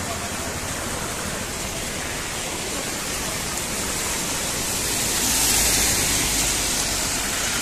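Heavy rain falling, a steady hiss that swells slightly about five seconds in.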